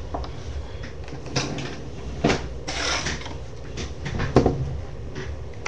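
AA batteries being taken out of a plastic battery-powered pencil sharpener's battery compartment: a few sharp plastic clicks and knocks, with a short scraping rustle about three seconds in.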